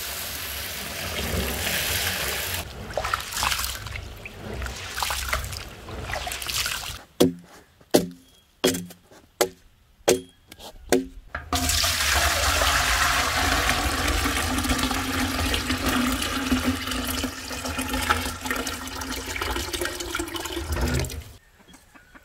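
Water poured from a jug onto wheat grains in an enamel basin, the grain being washed, then about eight sharp knocks with a short ring. From about halfway, water is tipped off the grain into a galvanized metal bucket in a steady stream that cuts off sharply near the end.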